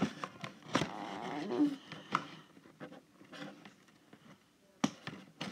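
Scissors cutting toy packaging: a few sharp snips with plastic and cardboard rustling in the first two seconds, then a pause and one more snip near the end.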